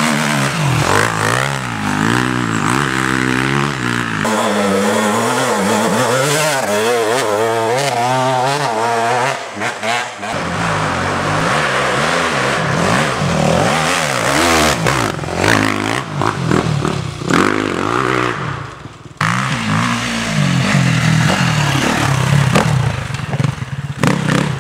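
Enduro dirt bike engines revving up and down hard as riders pass one after another on a muddy trail. Engine pitch rises and falls with throttle and gear changes, and the sound changes abruptly a few times where separate passes are cut together.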